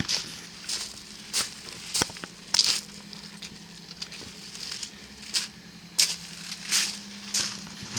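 Footsteps crunching on gravel at a steady walking pace, about one and a half steps a second.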